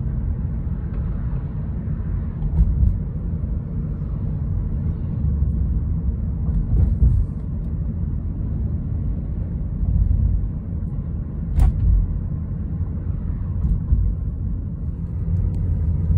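Road and tyre noise of a car at highway speed, heard from inside the cabin: a steady low rumble, with a single sharp click about two-thirds of the way through.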